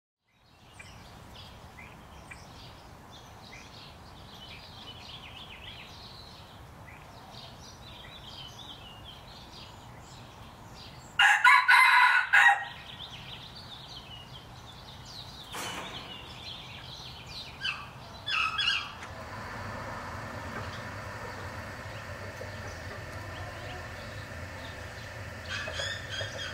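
Red junglefowl rooster crowing once, a short crow about eleven seconds in, over faint chirping of small birds.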